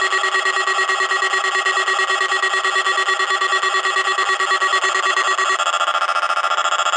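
Weather radio receivers' alert alarm sounding for the Required Weekly Test: a loud, fast-pulsing electronic beeping tone that switches to a different, higher-pitched pattern about five and a half seconds in.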